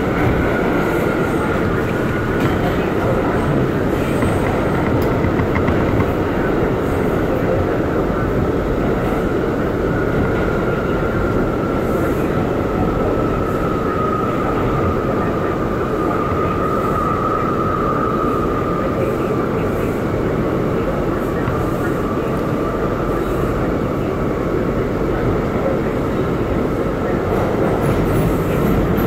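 R179 subway car running through a tunnel, heard from inside the car: a loud, steady rumble of wheels on track with a drawn-out high tone over it that drifts slightly lower partway through.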